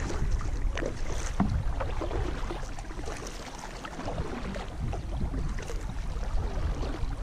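Kayak paddle strokes dipping and splashing in calm water, with wind rumbling on the microphone.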